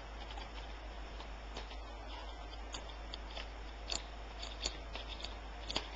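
Scattered small plastic clicks and scrapes as the front bezel of a laptop optical drive is worked loose from its clips, over a steady low hum.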